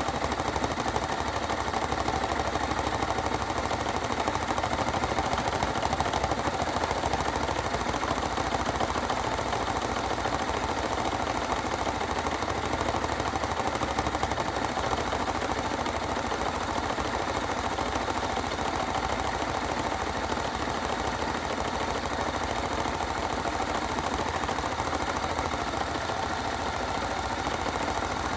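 Hoover washing machine running its rinse and spin with a toy RC car loose in the drum, making a continuous rapid clattering.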